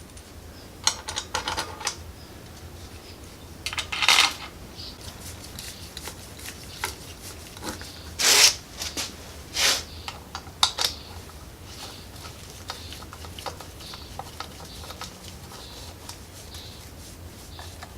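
Steel bolts clinking and rattling as they are handled and put into the clutch side cover of a Chinese 250cc ATV engine. It is a string of separate sharp metallic clinks, several loud ones spread over the first eleven seconds and lighter ticks after that.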